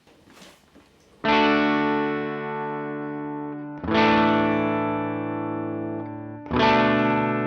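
Electric guitar through an EarthQuaker Devices Bit Commander octave-synth fuzz pedal and a Vox AC30C2 amp: fuzzy, synth-like tones struck three times, each left to ring and slowly fade. A few faint clicks come before the first strike.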